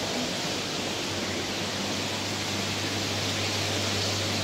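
Steady hiss of aquarium water circulation and aeration, with a steady low hum from the pumps underneath.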